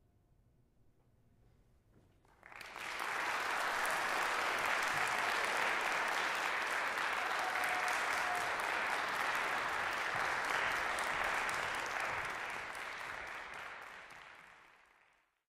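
Audience applauding, starting about two seconds in after a short hush and tailing away near the end.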